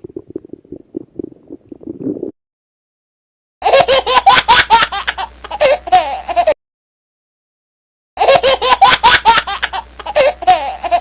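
A stomach growl gurgles in low pulses for about two seconds, then cuts off. After a short silence come two loud bursts of high-pitched giggling laughter, seemingly the same laugh clip played twice, each starting and stopping abruptly.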